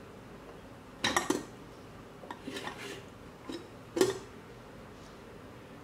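Scattered metal clinks and knocks from a stainless-steel pressure cooker's lid being handled to open it, after its pressure has been let out. The clinks are short and few, and the loudest comes about four seconds in with a brief ring.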